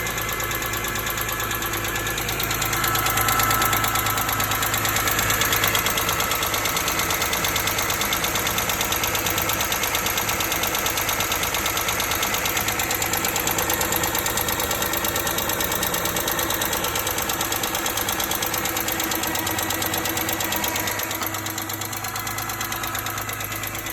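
2005 BMW E46 M3's S54 inline-six running with a fast, steady ticking from the engine, a little louder a few seconds in. One mechanic blames a pitted exhaust-side rocker arm, another the rod bearings, and the dealer called for a valve adjustment.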